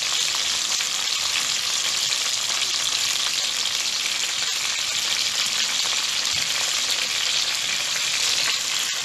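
Whole galunggong (round scad) shallow-frying in hot oil in a wok, giving a steady sizzle.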